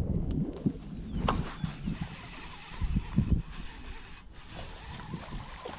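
Wind buffeting the microphone in uneven gusts, strongest in the first second, with a few faint clicks.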